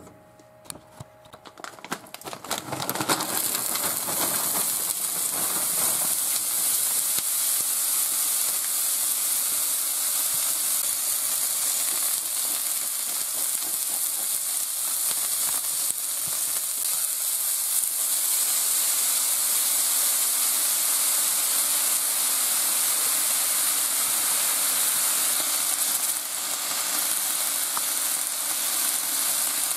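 Frozen green beans frying on the oiled plate of an electric Kitchen HQ griddle. A few clicks come as they go on, and about three seconds in a loud, steady sizzle starts and holds.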